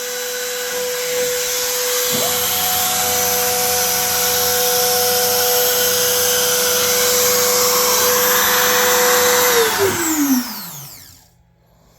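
Makita trim router serving as the Shapeoko CNC's spindle, running at a steady high-pitched whine, with a second, lower machine hum joining about two seconds in. Near the end both cut out and the router spins down, its pitch falling until it stops.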